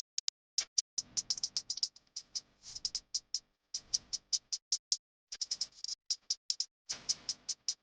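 Thin plastic packaging crinkling and crackling as it is handled, in quick irregular clicks with fuller crinkly rustles about a second in, around four seconds in and near seven seconds in.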